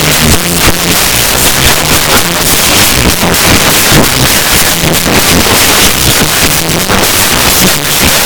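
Instrumental music, bass-boosted and heavily distorted into a loud, unbroken noise, with low bass notes that step from one pitch to the next.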